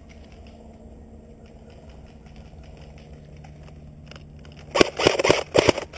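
Airsoft gun firing a quick, irregular string of sharp shots, starting near the end after several seconds of low background noise.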